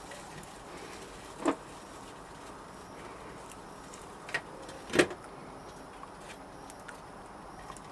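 A few knocks and clatters of sand-casting equipment being handled over a faint steady background, the loudest knock about five seconds in.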